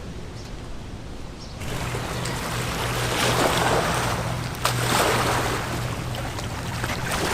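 A motor running with a steady low hum under loud rushing, splashing water, both starting abruptly about a second and a half in.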